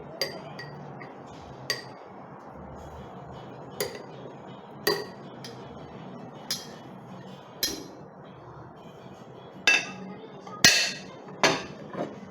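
A utensil clinking against the fried rice container, about ten separate knocks at irregular intervals. The loudest knocks come closer together near the end.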